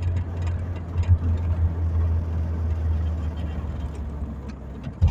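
Audi A3 1.8 20-valve turbo engine running, heard from inside the cabin as a steady low drone that slowly fades toward the end. A short sharp thump comes near the end.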